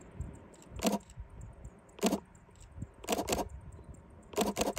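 A slow-moving train: a string of short clattering knocks, one at a time at first, then a pair, then a quick run of four near the end.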